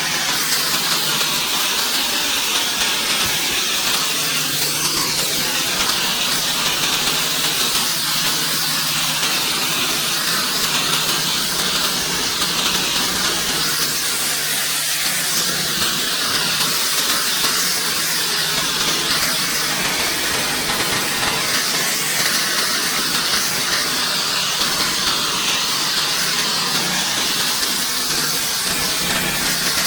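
Pressure washer spraying concrete, a loud steady hiss of high-pressure water with an unchanging low hum underneath.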